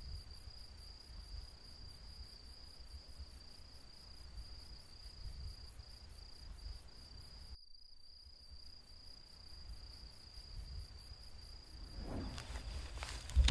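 Insects, crickets among them, trilling: a steady high-pitched trill with a faster, higher, even pulsing over it. It cuts out completely for about half a second just before halfway. Rustling builds near the end, ending in a sharp thump.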